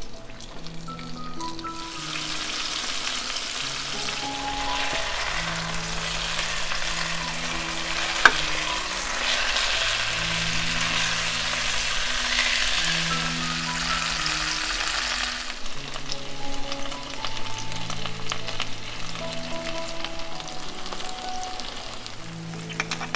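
Food sizzling in a frying pan. The sizzle builds about two seconds in, stays strong until around fifteen seconds, then drops to a softer sizzle. There is one sharp click about eight seconds in, and soft background music underneath.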